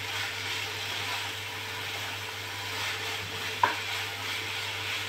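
Maggi noodles sizzling in oil in a nonstick frying pan as they are stirred and tossed with a spatula, a steady hiss with one sharp knock of the spatula against the pan about three and a half seconds in.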